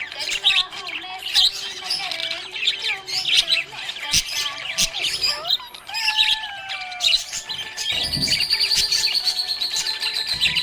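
Small parrots chirping and warbling in quick, overlapping calls. From about eight seconds in, one bird adds a fast, even trill.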